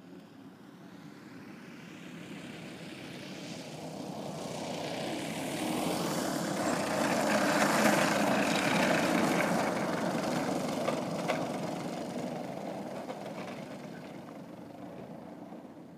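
Two-stroke gasoline engine (DLE 111 twin) and three-blade propeller of a large RC aerobatic plane in flight, passing by: the engine sound builds to its loudest about eight seconds in, then fades away.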